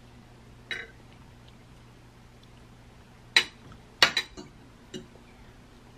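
Metal fork and knife clinking against a glass plate during a meal: one soft clink about a second in, then a cluster of sharp clinks from about three and a half to five seconds in, the loudest about four seconds in.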